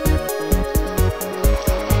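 Background electronic dance music with a steady, fast beat.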